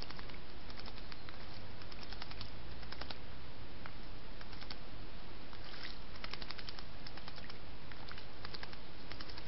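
A blackbird bathing in a shallow garden pond, its wings flicking water in several flurries of quick, pattering splashes, over a steady hiss.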